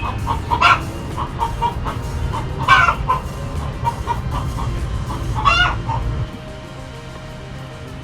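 Chickens clucking in a steady run of short notes, with a few louder drawn-out calls among them. A low rumble underneath stops about six seconds in.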